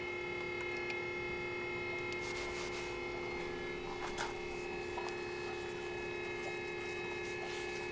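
Small electric oil pump humming steadily as it pushes fresh gear oil into an outboard's lower unit, left running until the oil comes out of the vent hole free of air bubbles. A few light clicks from handling around the middle.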